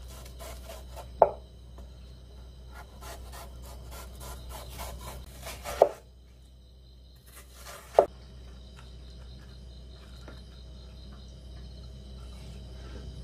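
Kitchen knife cutting a watermelon on a wooden cutting board: a quick run of scraping strokes as the blade pares and slices the rind and flesh, with three sharp knocks of the blade striking the board, about a second in, near six seconds and at eight seconds.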